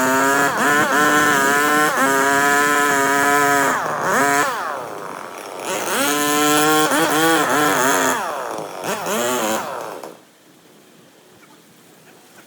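Two-stroke chainsaw run at high revs in two long throttle bursts, with the revs falling away between them. It drops off abruptly about ten seconds in.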